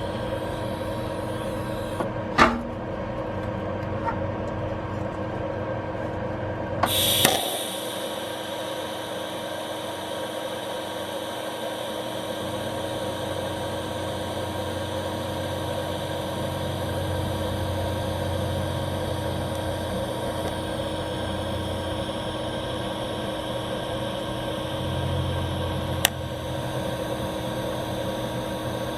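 Steady electrical hum from welding equipment, made of several fixed tones. It is broken by a few sharp clicks and a brief louder burst about a quarter of the way in.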